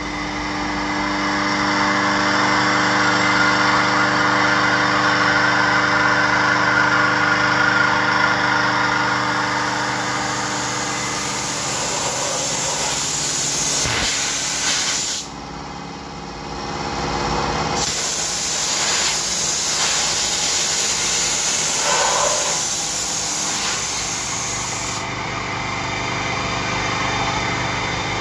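CNC machining centre milling aluminium under flood coolant: steady machine running with several held tones under a hiss of coolant spray. The sound changes abruptly a couple of times about halfway through.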